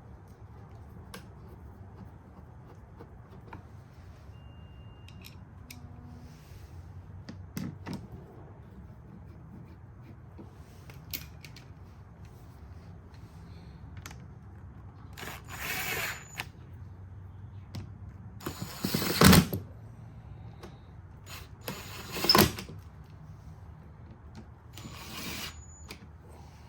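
A small motor running in four short bursts of about a second each, the second one the loudest. Light clicks and knocks fall between the bursts.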